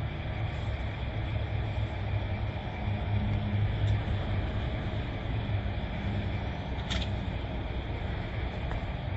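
BharatBenz multi-axle tipper truck's diesel engine running at low speed as the truck creeps forward, a steady low rumble that swells a little about three seconds in. A brief sharp click sounds about seven seconds in.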